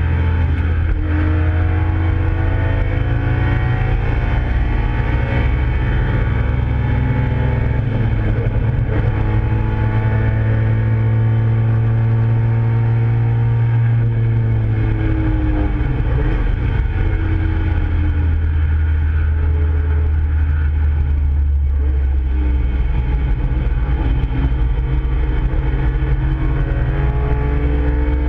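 Nissan Skyline GT-R (KPGC10)'s S20 twin-cam straight-six, heard from inside the cabin at racing speed: loud and steady, its pitch climbing under acceleration and dropping at shifts and lifts several times over.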